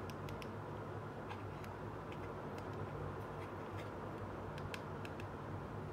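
Light, irregular clicks and taps of a small plastic toy fridge being handled and turned over in the fingers, over a steady low hum.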